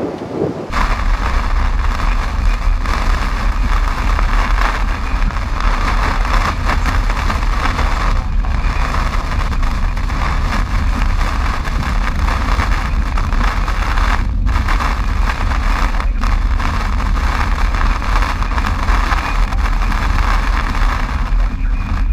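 Inside a car driving through a torrential downpour: steady road and engine rumble with heavy rain drumming on the roof and windshield, starting abruptly just under a second in.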